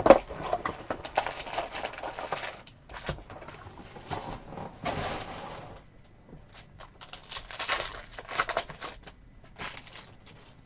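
Foil trading-card pack wrapper being torn open and crinkled, with sharp snaps and rustles in several spurts, the loudest a snap at the very start, as the cards are pulled out and handled.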